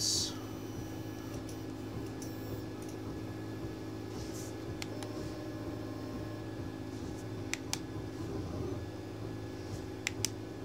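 Two 3D printers running, a steady mechanical hum with several constant tones. A few sharp clicks sound about seven and a half seconds in and again twice near the end.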